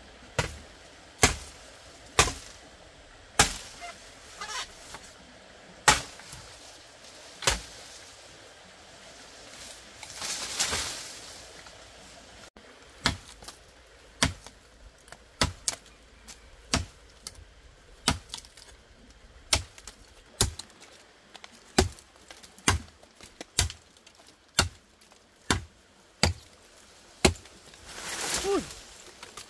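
Repeated chopping strikes of a blade, spaced out at first, then a steady run of about one and a half blows a second, with two brief rustling swells between.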